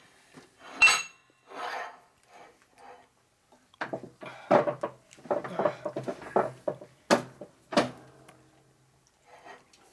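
Metal blocks and tooling clanking and scraping as they are shifted around on a shop press bed, with a few sharp metal knocks, about a second in and twice near the end, and a busy stretch of clatter in the middle.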